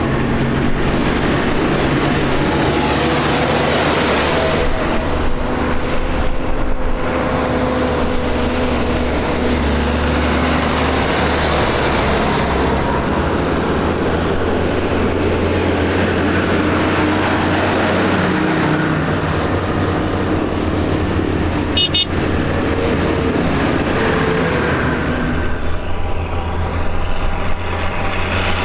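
Diesel engines of a convoy of farm tractors, a green John Deere and blue New Holland tractors among them, running steadily as they drive past one after another. A brief click about 22 seconds in.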